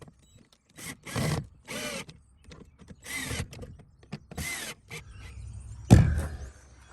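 Cordless drill-driver running in about five short bursts, its motor pitch rising and falling as screws are driven in. A sharp knock about six seconds in.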